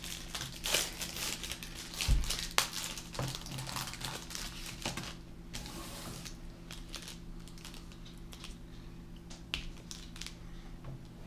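Feastables chocolate bar wrapper crinkling as it is handled and worked open: irregular crackles, dense for the first five seconds and sparser after, with a low thump about two seconds in.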